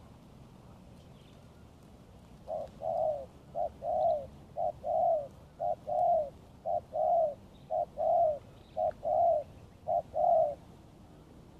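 Spotted dove cooing: a run of about eight paired notes, each a short coo followed by a longer arched one, roughly one pair a second, starting a couple of seconds in.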